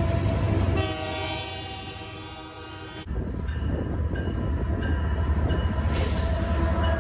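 A Canadian Pacific freight train rumbles past close by. From about a second in, a multi-note locomotive horn chord sounds and fades away. About three seconds in, the sound changes abruptly to a Norfolk Southern diesel locomotive approaching, its engine a low rumble that grows louder.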